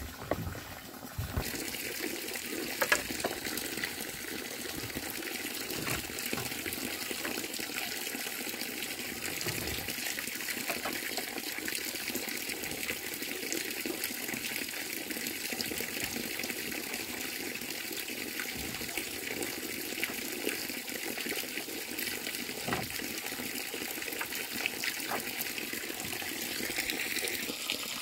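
Steady rush of running water, with a few light knocks now and then.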